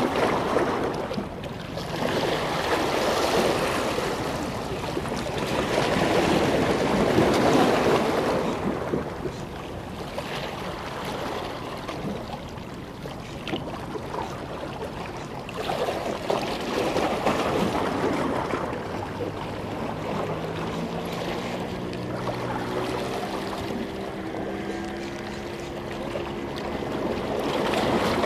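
Wind on the microphone and waves washing on a rocky shore, swelling and easing every few seconds. About two-thirds of the way in, a low steady motor hum of several tones joins for several seconds.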